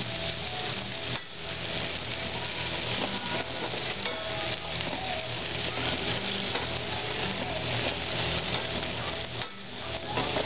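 Food sizzling steadily in a hot pan on the stove.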